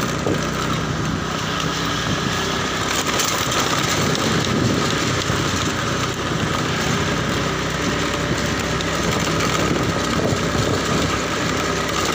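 Small fuel-injected Honda motor scooter engine running steadily while riding slowly, with road and wind noise over it.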